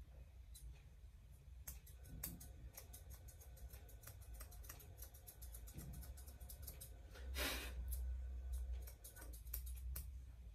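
Grooming scissors snipping in quick, irregular clicks as they trim the long fur around a Persian cat's face, with a short breathy puff about seven seconds in.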